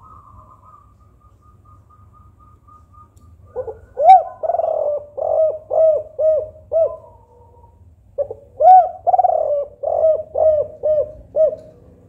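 Spotted dove cooing in the 'kuk 4' song type. There are two bouts, one starting about three and a half seconds in and one about eight seconds in, each a quick run of short coos that rise and fall in pitch.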